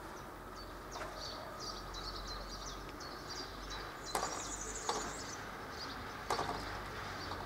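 Mechanical level-crossing barriers lowering and coming to rest, with several sharp clunks and a brief rattle about four to five seconds in, over steady bird chirping.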